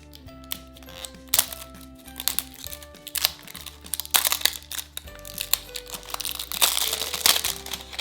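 Blind-bag toy packaging crinkling and rustling as it is torn open and handled, in repeated spells that are densest in the second half, over light background music.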